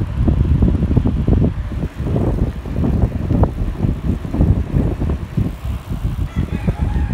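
Wind buffeting the microphone of a camera carried on a moving bicycle: a loud, gusty low rumble.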